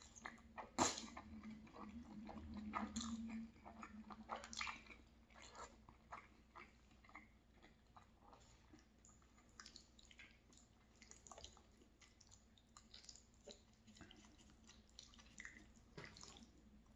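Close-miked mouth sounds of a person chewing a mouthful of linguine in tomato sauce: faint wet smacks and clicks scattered throughout, with a louder smack about a second in.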